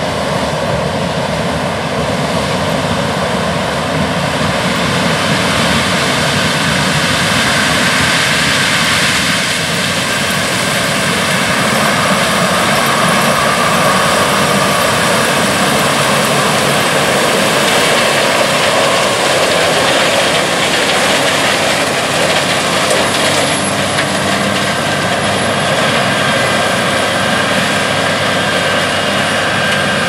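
CLAAS Lexion 7500 Terra-Trac combine harvesting corn: its Mercedes-Benz OM470 six-cylinder diesel running under load, mixed with the steady whir and whine of the threshing machinery. It grows a little louder through the middle as the combine passes close.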